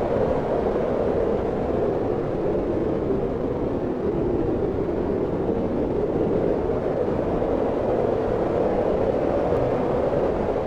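Wind blowing steadily, a continuous rushing noise with a low rumble beneath it and no distinct gusts.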